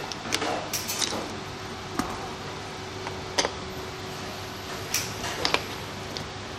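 Scattered light clicks and taps from parts and tools being handled during repair work, about half a dozen in all, over a steady background hum.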